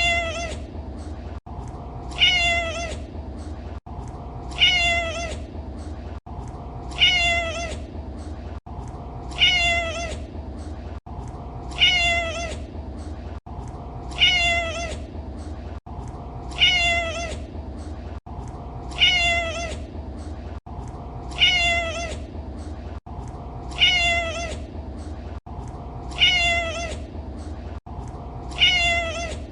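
Domestic cat meowing: the same short meow repeated about every two and a half seconds in a loop, with a brief dropout between meows, over a steady low hum.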